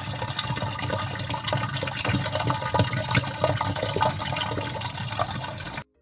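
Water running out of the end of a gravity-flow plastic water pipe, a steady splashing gush. It cuts off suddenly near the end.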